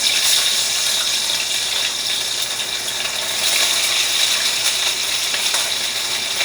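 Fish sizzling in a hot pot as it is put in to brown, the sizzle starting suddenly and carrying on steadily with small crackles.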